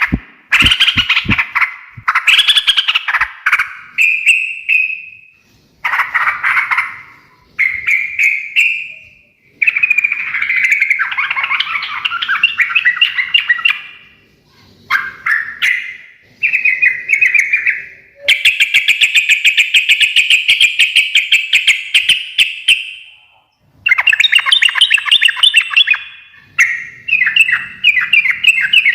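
Yellow-vented bulbul (trucukan) singing loud, bubbling, chattering phrases one after another with short pauses, including one long unbroken chatter about two-thirds of the way through.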